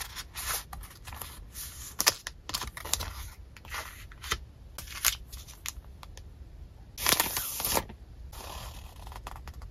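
Paper sticker sheets and art cards being handled: a string of short slides, taps and crinkles. The loudest is a longer rustle about seven seconds in, followed by a softer one.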